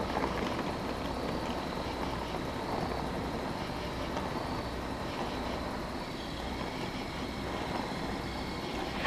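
Steady, even running noise of a SEPTA Rotem Silverliner V electric train some way down the track, with a faint steady high-pitched tone above it.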